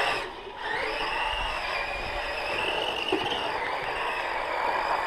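Iron Track Spatha short course truck's brushed 550 electric motor and geared drivetrain whining as it drives on dirt. The whine drops briefly near the start, rises again under throttle, and wavers in pitch with the throttle.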